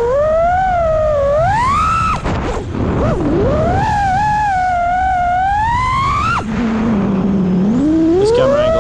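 FPV quadcopter's motors and propellers whining, the pitch sweeping up and down with the throttle. The whine drops away briefly about two seconds in and again past six seconds, then holds low and climbs steadily toward the end.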